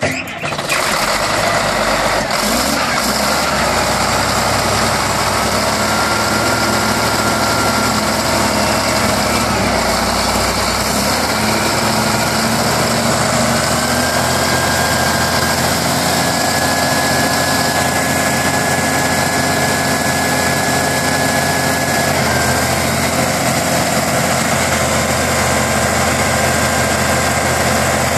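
Caterpillar 980B wheel loader's diesel engine starting and settling straight into a steady idle.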